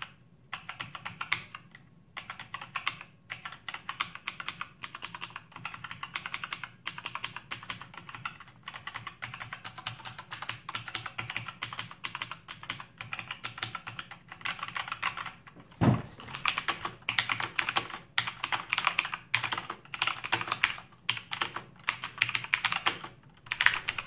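Typing on a Blackweb mechanical keyboard with clicky Outemu blue switches, a few of them replaced by Cherry MX Browns: a rapid stream of key clicks. There is one heavier thud about two-thirds of the way through, and the clicking grows denser and louder after it.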